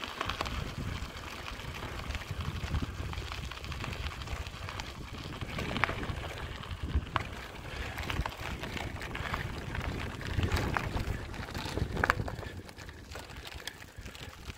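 Gusty wind buffeting the microphone as a small dust devil whirls over a dry ploughed field, a low uneven rush with scattered crackles. It eases off in the last two seconds.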